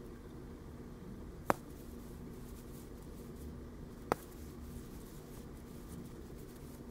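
Quiet hand crocheting: a steel crochet hook working single crochet stitches in yarn over a steady low hum, with two sharp clicks, one about a second and a half in and another about four seconds in.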